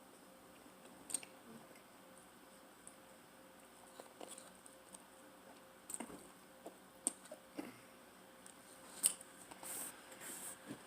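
Person eating pizza: faint chewing and wet mouth sounds with scattered sharp clicks, and two short hissy swishes near the end.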